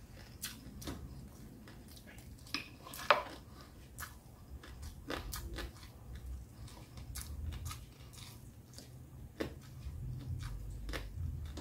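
A man chewing crispy pata (deep-fried pork knuckle) and rice close to the microphone: quiet, scattered mouth sounds, lip smacks and small clicks, with one louder mouth sound about three seconds in.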